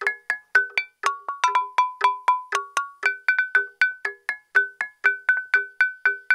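Stone lithophone (đàn đá) made of natural stream stones, struck in a quick melody: a steady run of sharp ringing notes, about four or five strikes a second, stepping between a few pitches.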